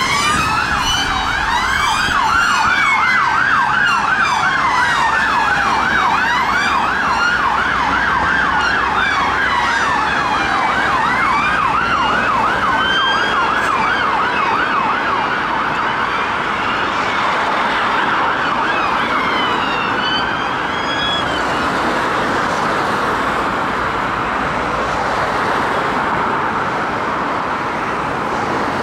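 Several police car sirens sounding together, a fast yelp with slower wails overlapping it, loud at first and fading away after about the middle, leaving steady city traffic noise.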